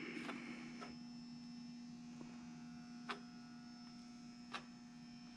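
Faint, steady electrical hum, with a few soft clicks.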